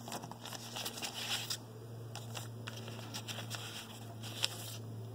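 Soft crinkling of the paper sleeve that a set of new piston rings came packed in, with scattered light clicks as the rings are lifted out and handled, over a steady low hum.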